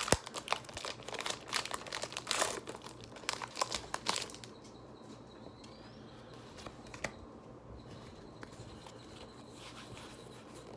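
Foil wrapper of a Pokémon booster pack crinkling and tearing as it is opened, a dense run of crackles over the first four seconds, then only faint handling with a single tap about seven seconds in.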